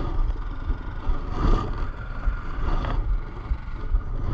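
Uneven low rumble of wind and movement on a body-worn camera's microphone outdoors.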